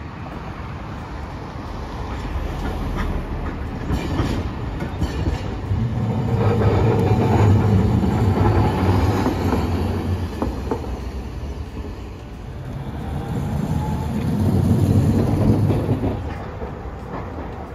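Hiroden 700-series streetcar (car 712) running past on street track. The rumble of its wheels on the rails swells to its loudest as it passes, with a few clicks over rail joints, then fades. It swells again briefly near the end.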